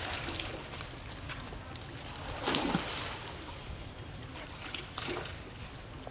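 Water sloshing and splashing as a monkey swims, with a louder splash about two and a half seconds in and smaller ones near the start and about five seconds in.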